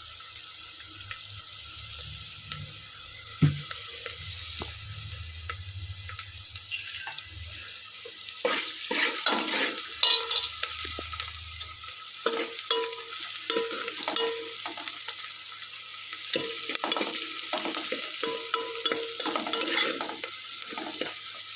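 Food frying in hot oil in a pan, a steady sizzle, with a spatula stirring and scraping against the pan. The scrapes and clicks come thick and fast from about eight seconds in.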